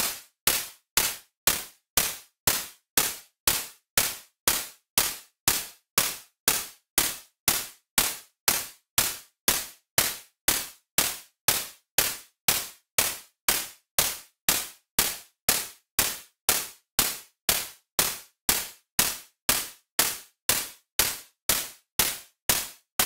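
Synthesized handclap built from white noise in a soft synth, in the style of the Roland TR-808, triggered over and over at about two hits a second. Each hit is a short, sharp burst of noise with a quick decay, overdriven and distorted, with a short reverb tail.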